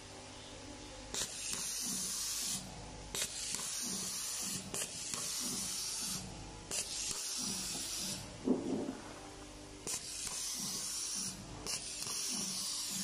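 Handheld automatic cable tie gun cycling again and again, about six times: each cycle a sharp click followed by a hiss lasting about a second, as one zip tie is fed through the hose and bundled.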